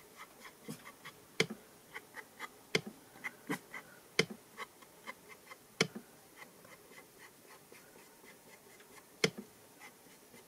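Finger-sponge ink applicator dabbed on an ink pad and worked along a card's edge: a run of small, irregular taps and clicks, with louder taps about a second and a half apart in the first six seconds and another near the end.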